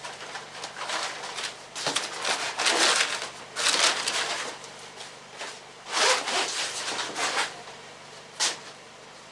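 Irregular rustling and scuffing noises, a string of short bursts with the loudest ones about two to four seconds in and again around six to seven seconds.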